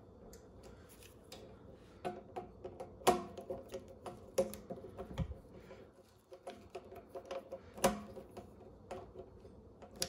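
Irregular small clicks and clinks of a screwdriver and small parts being handled while fastening wires to the terminals of an air compressor's pressure switch. There is a sharper clack about three seconds in and another near eight seconds, and a dull thud around five seconds.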